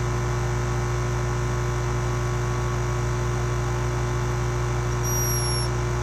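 A sleeping hummingbird's snore: one thin, high-pitched whistle, falling slightly, about five seconds in. A steady low electrical hum runs underneath.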